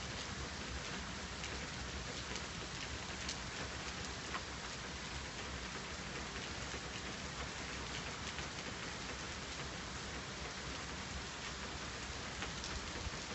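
Steady rain falling: an even hiss with scattered sharp ticks of single drops.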